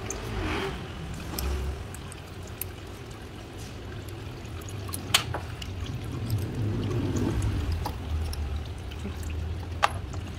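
Automatic transmission fluid trickling and dripping from the opened valve body of a Perodua Myvi gearbox into a drain pan, under low rumbling handling noise. A few sharp clicks stand out, the loudest about five seconds in and another near the end.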